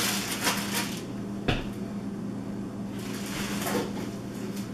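Plastic wrapping rustling and crinkling as it is pulled off a vacuum cleaner's metal wand, with a single sharp knock about a second and a half in.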